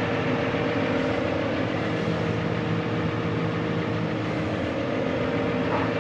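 Steady drone of a farm vehicle's engine running at constant speed, a hum of several steady tones with no changes in pitch.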